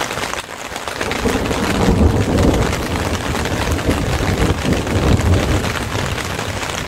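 Heavy rain from a thunderstorm, a dense patter with a low rolling rumble of thunder that swells twice.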